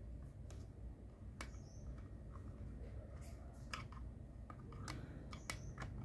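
Scattered light clicks and taps of hard plastic on plastic as a pressure washer's hose reel is handled and fitted against the machine's plastic body.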